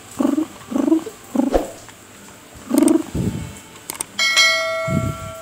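Bangkok game roosters give several short, low clucks in the first three seconds. About four seconds in come a couple of clicks and then a loud ringing bell ding that lasts over a second: the sound effect of an on-screen subscribe-button animation.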